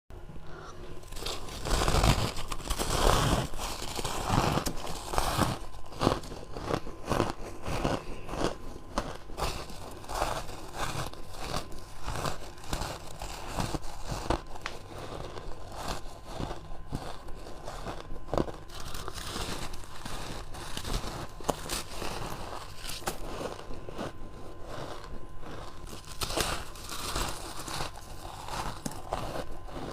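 A person biting and chewing hard frozen ice, a dense run of crisp crunches one after another, heaviest in the first few seconds.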